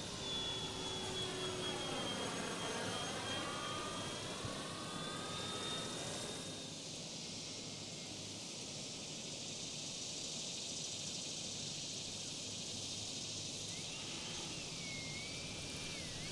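80mm electric ducted fan of a scale RC jet whining as the model passes, with a sweeping whoosh. About six and a half seconds in the whine stops as the fan is throttled back for landing, leaving a steady hiss, and a faint wavering whine comes back near the end on the approach.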